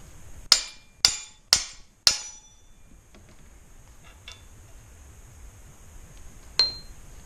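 Four sharp metal-on-metal hammer blows, about half a second apart, driving a headset cup out of a BMX frame's head tube, each ringing briefly; a single lighter ringing tap follows near the end.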